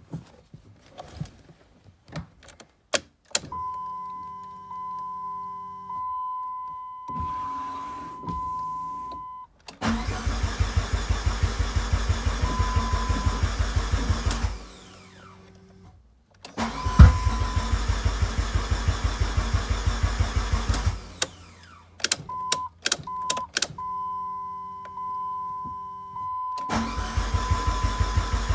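2004 Dodge Neon SRT-4's turbocharged four-cylinder being cranked by the starter three times, chugging rhythmically without catching: a crank-but-no-start fault. A sharp bang at the start of the second crank fits the backfire the owner describes before it carries on cranking. Between attempts there are clicks and a steady high chime.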